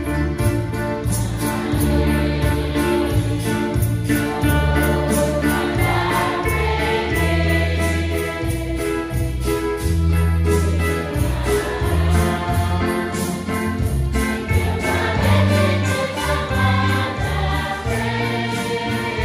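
A church congregation and lead singers singing a hymn together to electronic keyboard accompaniment, over a deep bass line and a steady beat.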